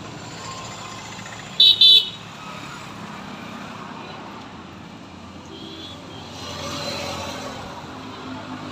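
Highway traffic going by, with a vehicle passing and swelling up around seven seconds in. About a second and a half in come two short, loud beeps.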